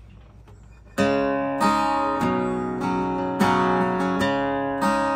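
Acoustic guitar strummed, starting about a second in: chords ring on with a fresh strum every half-second to second.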